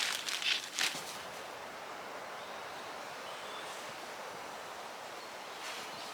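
Steady wind rushing through woodland trees, after a few brief crackly rustles in the first second.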